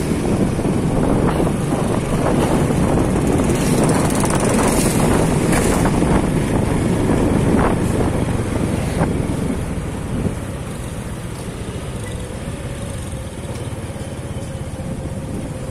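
Motorcycle riding noise: wind rushing over the microphone with engine and road noise. The rush eases about ten seconds in, leaving a steadier engine hum.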